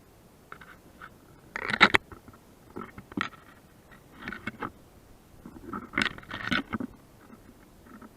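Close rustling and crunching in irregular bursts, loudest about two seconds in and again around six seconds in: an airsoft player moving, with clothing and gear scraping near the microphone.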